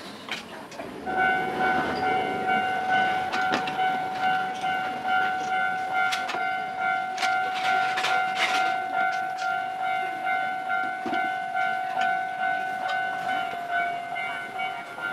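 Railway level-crossing alarm bell starting about a second in and ringing in a steady, rhythmic pulse, with scattered clicks and clatter over it.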